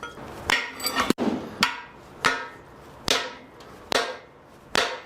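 Hammer blows on metal, about seven strikes at an uneven pace with a bright ringing after each, driving at a piston seized in the cylinder bore of a small-block Chevy 350.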